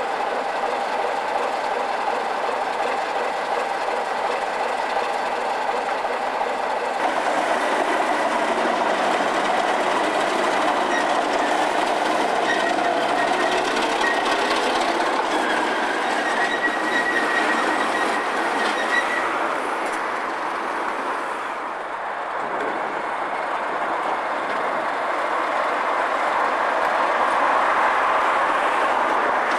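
A Class 33 and a Class 37 diesel locomotive working in multiple, their engines running as they pass along the track: a Sulzer eight-cylinder in the 33 and an English Electric V12 in the 37, with wheels clattering on the rail. A thin high squeal comes in the middle. The sound changes abruptly twice where separate takes are joined.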